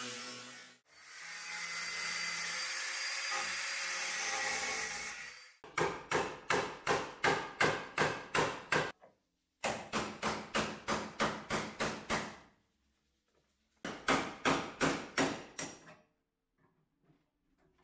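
A power tool runs for about five seconds. Then come three runs of quick, even hammer blows on a chisel against steel, about four a second, each with a short ring, as old patched sheet metal is chiseled off a car body.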